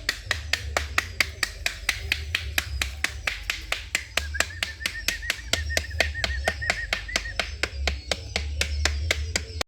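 A steady run of sharp clicks, about four a second, over a low rumble, with a high warbling whistle from about four to seven and a half seconds in.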